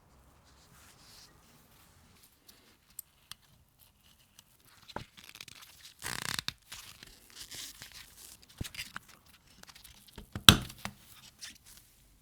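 Hands working on small camera parts: scattered clicks, scrapes and short scratchy rustles, with a louder rustle about six seconds in and a sharp click about ten and a half seconds in.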